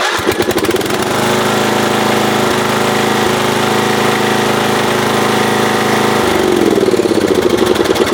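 Lawn tractor engine cranked on the starter and catching almost at once, then running steadily; it slows down near the end. This is a warm restart that now works after the ignition coil was replaced, the old coil having failed once the engine got hot.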